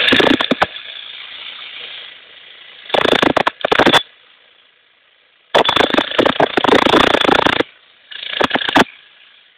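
Demolition breaker hammering into a brick wall in runs of rapid blows, stopping and starting: a short run at the start, then three more, the longest about two seconds, with pauses between.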